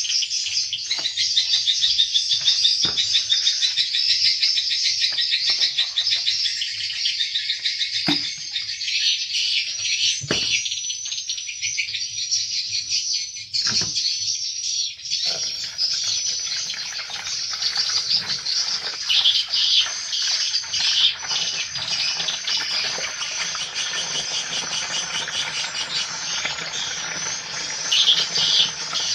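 Dense, rapid twittering of swiftlets, many birds calling at once in high chattering trills. A few knocks fall in the first half, and from about halfway a steady hiss joins underneath.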